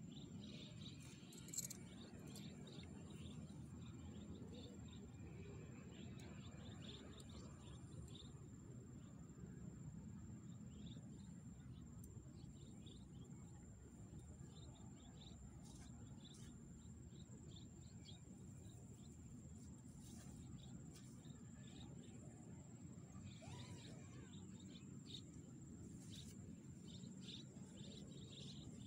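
Faint outdoor ambience near silence: a low wind rumble, a steady high insect drone and scattered faint chirps. One sharp click comes about a second and a half in.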